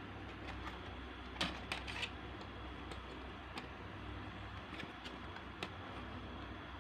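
Scattered sharp clicks and taps over a steady low hum, with a quick cluster of them about a second and a half in.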